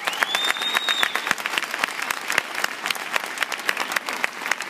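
Audience applauding, with a high held tone sounding over the clapping for about the first second.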